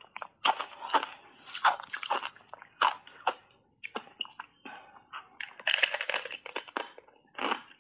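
Thin block ice coated thickly in matcha powder being bitten and chewed: a run of short, sharp crunches at uneven spacing, with a longer crackling crunch near six seconds as a fresh bite is taken.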